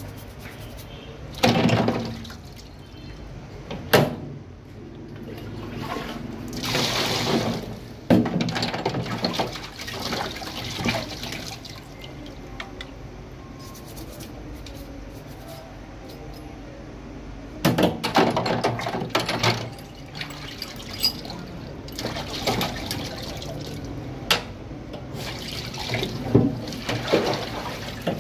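Rinse water splashing and sloshing in a plastic tray as the steel parts of a 1911 pistol are washed by hand, in irregular bursts with a few sharp knocks. Near the end the tray is tipped and the water pours out into a stainless steel sink.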